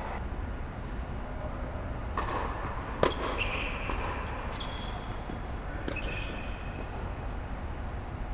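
Tennis rally on an indoor hard court: a series of sharp pops from the ball being struck by racket strings and bouncing, about one to one and a half seconds apart, the loudest about three seconds in. Short high sneaker squeaks follow several of the hits, over a steady low rumble.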